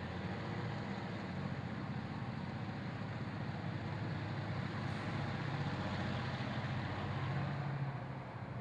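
EMD diesel road-switcher locomotive engine running steadily, a low rumble that grows a little louder near the end.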